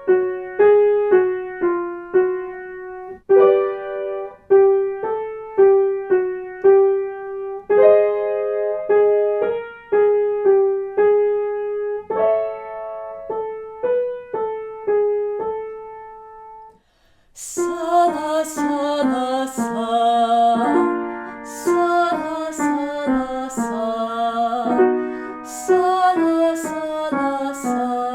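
Piano accompaniment for vocal warmup exercises: short note patterns repeated, each time moved up a step. After a brief pause around two-thirds of the way in, a new exercise's accompaniment starts with fuller chords and sharp percussive hits.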